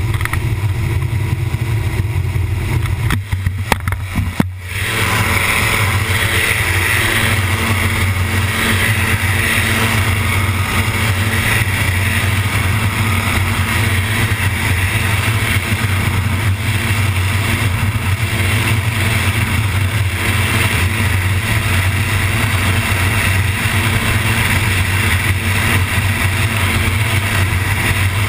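Gyroplane engine and pusher propeller running steadily, heard from a camera on the tail. About four seconds in there are a few knocks and a brief dip. Then a louder rushing noise sets in as the camera, shaken loose on the rough runway, hangs on its safety strap.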